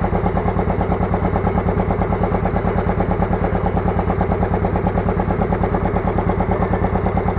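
Fishing boat's engine idling, a loud steady chugging at about nine beats a second.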